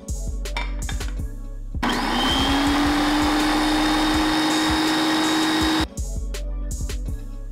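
Small electric food processor running about two seconds in, its motor spinning up to a steady whine as it chops olives and capers to a fine paste, then cutting off suddenly some four seconds later. Background music plays before and after it.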